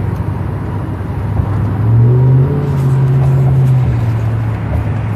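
Car engine and tyre noise at highway speed, heard from inside the car. The low engine hum rises in pitch and grows louder about two seconds in, as when accelerating, then eases back near the end.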